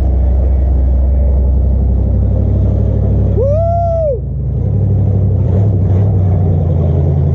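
Jeep Grand Cherokee (ZJ) running, a steady low engine and road hum, with a brief squeal that rises and falls in pitch about three and a half seconds in.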